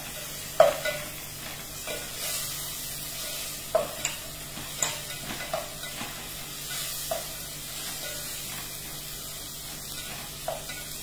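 Onions frying in hot oil in a metal pot, sizzling steadily while a wooden spoon stirs them, knocking and scraping against the pot every second or two.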